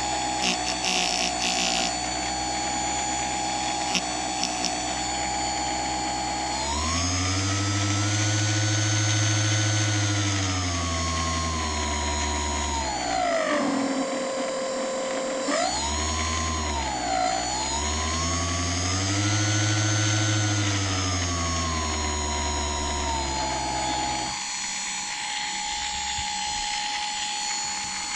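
Small 12 V kayak thruster's electric motor running out of water, its whine rising and falling in pitch several times as the speed knob is turned up and down, with a deep hum under the faster stretches. A few light clicks come in the first two seconds.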